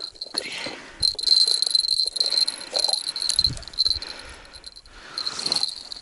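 Hands handling a winter tip-up on snow: scattered clicks and rustles, with a high, thin buzz that comes and goes.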